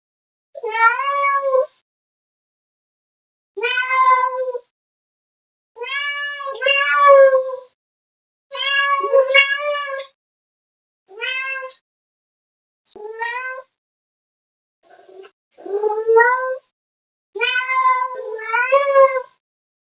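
Domestic cat meowing: about eight drawn-out meows, each a second or two long, with short silent gaps between them; one meow past the middle rises in pitch.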